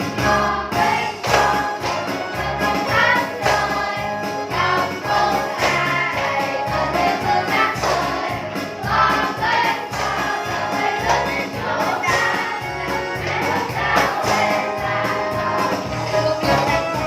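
Music with singing voices over a steady bass beat.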